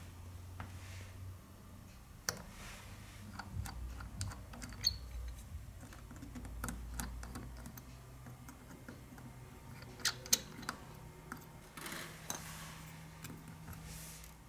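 Scattered small clicks and taps of a phone and small tools being handled during disassembly, with a few sharper clicks about ten seconds in and a short rustle soon after.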